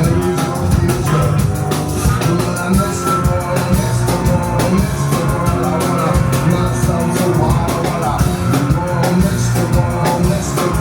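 Live rock band playing a stretch of a song with no vocal line, driven by a steady drum-kit beat, as heard from the audience.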